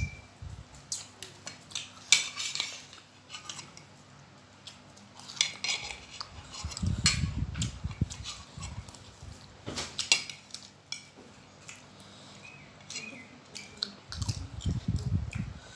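Metal spoons and forks clinking and scraping against ceramic plates of instant noodles in quick scattered clicks, with close eating noises in two denser stretches, about seven seconds in and near the end.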